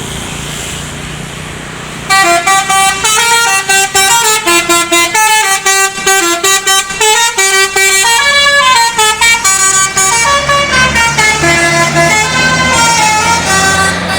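A bus's 'telolet basuri' musical horn playing a quick melody of notes stepping up and down, with short breaks between them. It starts about two seconds in, over the running bus engine.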